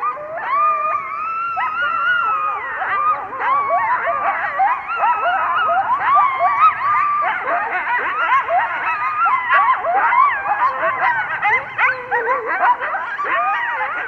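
A group of coyotes howling and yipping together, many voices overlapping. A few longer wavering howls near the start give way to a dense chorus of quick rising and falling yelps.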